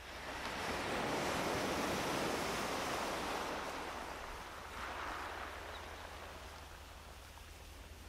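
Ocean waves washing onto a beach: one wave swells up within the first second, holds, then fades, and a smaller wash follows about five seconds in.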